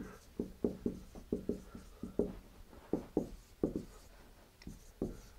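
Dry-erase marker writing on a whiteboard: a quick, irregular run of short strokes and squeaks, two or three a second.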